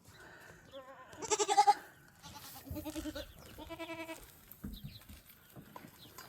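Young goat kids bleating for feed, three calls in a row, the first and loudest with a wavering, quavering pitch.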